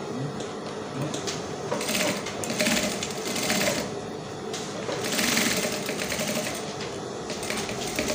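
Sewing machine stitching through layers of fabric in several short runs, stopping and starting again as the fabric is guided.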